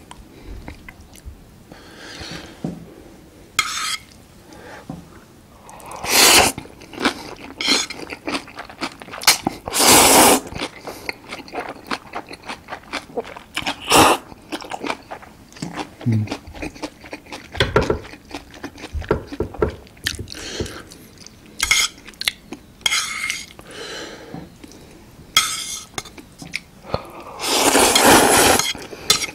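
Close-up eating of Jjapaghetti black-bean instant noodles: loud slurps of noodles off a large spoon, the longest near the end, between bouts of chewing and small clicks of metal chopsticks against the spoon.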